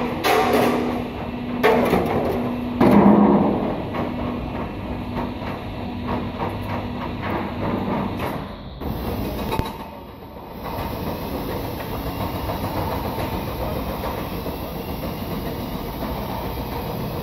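Four-post car lift lowering a loaded platform: its mechanism running steadily with clanks and clicks, and a hum that stops about eight seconds in. Several sharp knocks come in the first three seconds.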